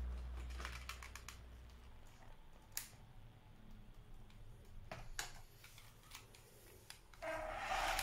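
Scattered sharp plastic clicks and knocks from handling a toy RC car and its steering-wheel transmitter. About seven seconds in, a louder, steadier sound comes in.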